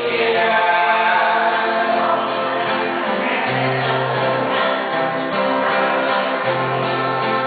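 Men singing together in harmony to strummed acoustic guitars.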